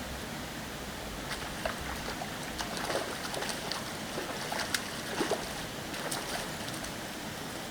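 Water splashing in short, irregular bursts over a steady rush of background water: a hooked fish splashing at the surface as it is brought in.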